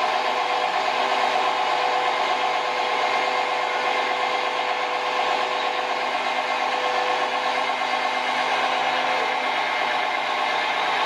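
Liebherr mobile crane's diesel engine running steadily under load while lifting and slewing a heavy steel turntable deck, with a steady whine over the engine noise.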